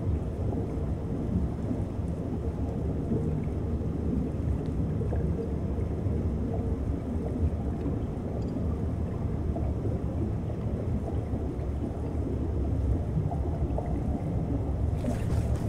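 Underwater ambient noise: a steady low rumble of moving seawater and surge, with a short burst of hiss near the end.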